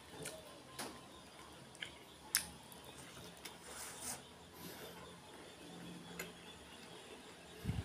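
Faint close-up eating sounds: a mouthful of rice being chewed with soft wet mouth noises, and fingers handling the rice. Scattered sharp mouth clicks; the loudest comes about two and a half seconds in.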